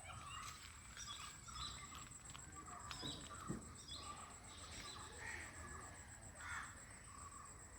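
Faint outdoor birdsong: scattered short chirps and calls, with two stronger calls about five and six and a half seconds in, over a steady high-pitched hum.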